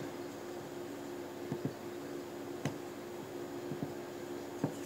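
A few faint clicks as a glass mug is handled and turned on a wooden table, over a steady low hum.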